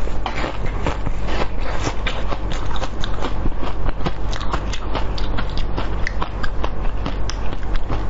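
Close-miked eating of a frozen purple-shelled treat: rapid, irregular crunching and chewing clicks as the frozen shell is bitten and chewed, several a second throughout.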